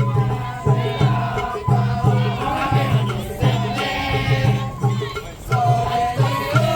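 Japanese festival hayashi: taiko drums keeping a steady beat under a wavering shinobue flute melody.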